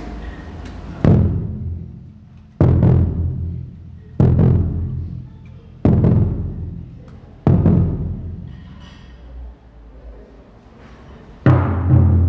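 Dramatic background music built on deep drum strikes, five in a row about a second and a half apart, each ringing out and fading. Fuller, continuous music comes in near the end.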